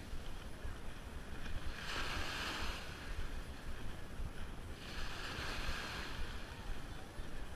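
Small waves washing up on a sandy beach: a hiss of surf swells twice, about three seconds apart, over a steady low rumble of wind on the microphone.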